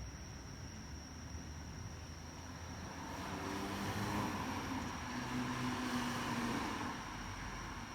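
A vehicle passing by: engine and road noise swell up about three seconds in, peak, and fade again, the engine tone dropping in pitch as it goes past.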